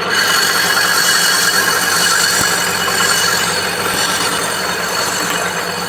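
Car brake drum being turned on a lathe: the cutting tool scrapes steadily across the drum's iron face, with a few thin high tones running through the noise. The cut grows louder and brighter right at the start.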